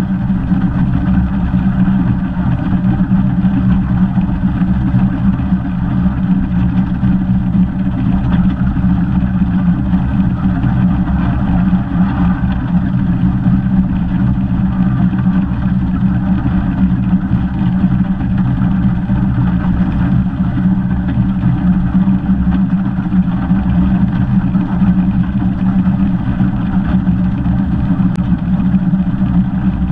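15-inch gauge steam locomotive 'Northern Rock' running along the line: a loud, steady rumble of the engine and its wheels on the track, without letting up.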